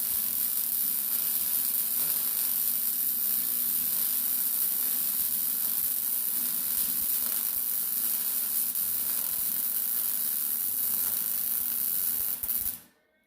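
Electric arc welding on steel: a steady, even crackling sizzle from the welding arc, cutting off suddenly near the end as the arc is broken.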